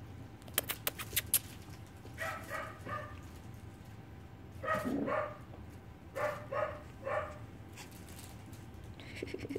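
Puppies yapping: short high barks in three quick clusters of two or three, with a few sharp clicks just before the first.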